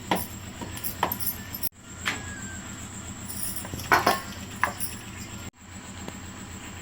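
A few sharp clinks and knocks of kitchen utensils over a steady background rumble. The sound drops out abruptly twice, about two seconds in and again near the end.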